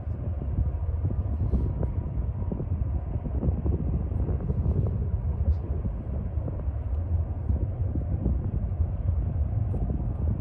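Wind buffeting the microphone: a steady low rumble with flickering gusts and no horn sounding.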